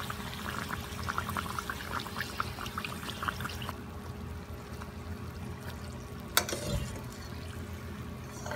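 Buns deep-frying in hot oil, a bubbling crackle of many small pops that thins out a little over a third of the way through, over a low steady hum. A single sharp knock comes about two-thirds of the way in.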